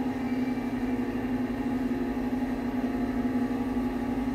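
Passenger lift car travelling upward: a steady hum with several steady tones, the car's ventilation fan plainly noticeable.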